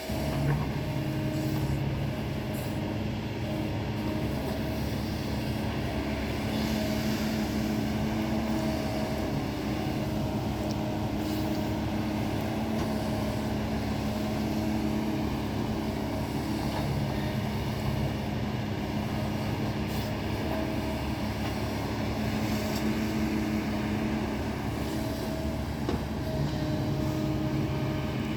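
Kobelco excavator's diesel engine running steadily as it works, a constant drone with a higher tone that comes and goes.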